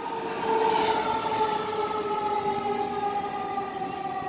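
Fire truck siren sounding as the pumper drives away, a steady tone that slowly falls in pitch.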